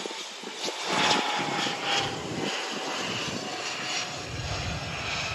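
Jet airliner engines heard at a distance around the airport: a steady rushing noise with a faint thin whine in it.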